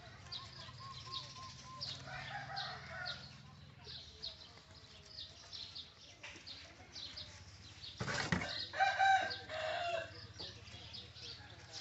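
Animal calls: short high chirps repeating throughout. About eight seconds in comes a brief rustling clatter, then the loudest sound, a pitched call lasting about a second and a half.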